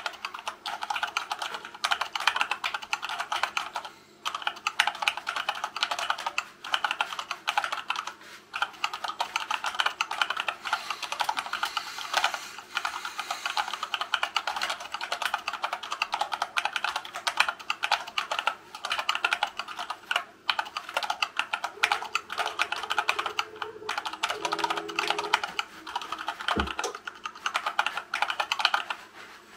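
Fast, continuous typing on a hand-wired Dactyl Manuform split keyboard with a wood-filament case and silicone-lubed Gateron Brown tactile switches. It is a dense stream of keystrokes at about 68 words a minute, broken by a few brief pauses.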